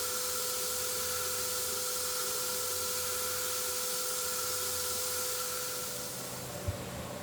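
CNC router spindle running at high speed: a steady whine over a loud hiss. About six seconds in the hiss drops and the whine steps slightly higher in pitch, followed by a single short knock.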